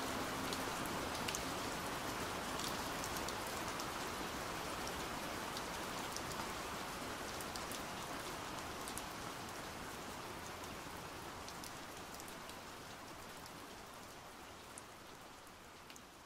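Rain falling: a steady hiss of rainfall with scattered single drops ticking through it, fading out gradually.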